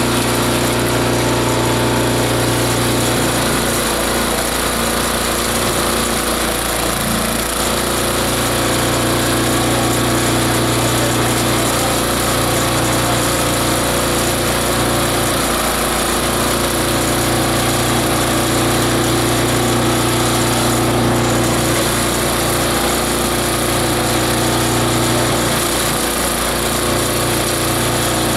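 Multi-purpose chopper-shredder-grinder machine running steadily under load, a continuous mechanical drone with a hiss of material being ground through its blades. Its low hum dips briefly a few times.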